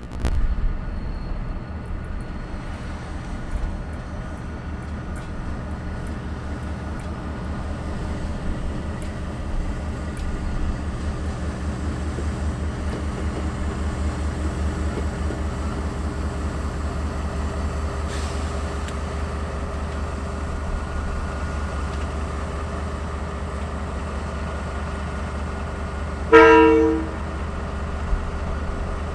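Freight train hauled by KiwiRail EF-class electric locomotives running past with a steady low rumble. About 26 seconds in, the locomotive gives one short horn blast.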